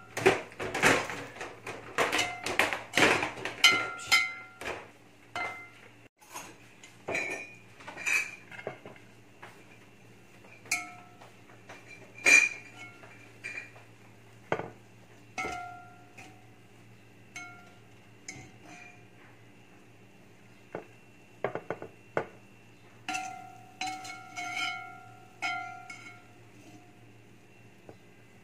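Wire-mesh spider strainer scraping and clinking against a metal cooking pot as cooked rice is scooped out, each knock leaving a brief metallic ring. A busy run of scrapes and clinks comes first, then single clinks about a second apart, a short pause, and a last cluster near the end.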